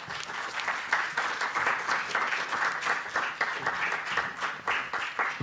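Audience applauding steadily in an auditorium, many hands clapping at once.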